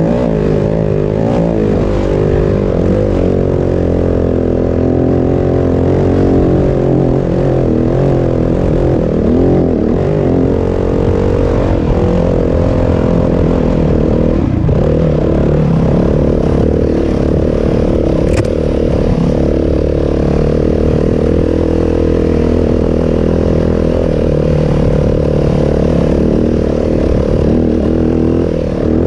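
Yamaha WR250F dirt bike's single-cylinder four-stroke engine running under way on a trail, its pitch rising and falling with the throttle in the first half and steadier from about halfway on.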